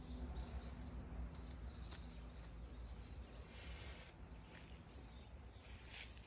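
Faint rustling and light crunching of dry fallen leaves underfoot, in a few short scattered bursts, over a low outdoor background hum.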